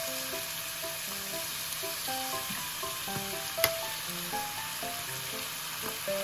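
Strips of burdock root sizzling steadily in a hot frying pan just after going in, with one sharp knock, like a utensil against the pan, a little past the middle.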